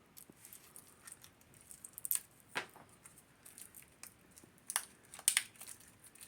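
A card deck's packaging being opened by hand: scattered soft crinkles, clicks and small tears of wrapping, the sharpest about two seconds in and again near the end.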